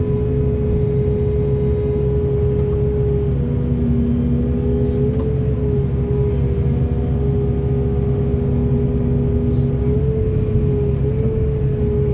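Large hydraulic excavator working: the diesel engine rumbles steadily under a high, slightly wavering whine, with a few short clacks scattered through.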